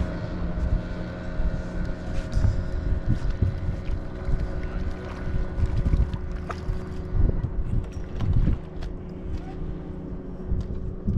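Wind buffeting the microphone in irregular low gusts over a steady hum, with a few faint ticks.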